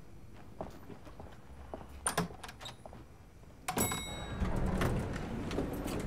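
A few soft knocks and a door shutting about two seconds in. Then a bell-like chime rings out, followed by a steady hum and footsteps on a hard floor.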